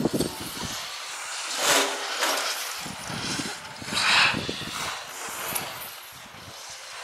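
Skis scraping and hissing on packed snow as skiers pass by, with two louder swooshes about two and four seconds in.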